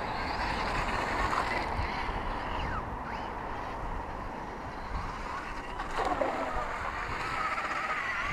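Steady whirring hum of a camera drone's propellers.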